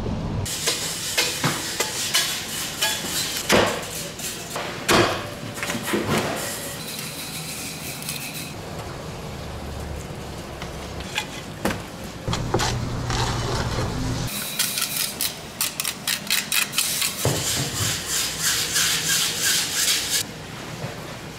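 A large knife working through a whole yellowfin tuna on a plastic cutting board: sharp knocks and scraping, with a run of quick strokes near the end.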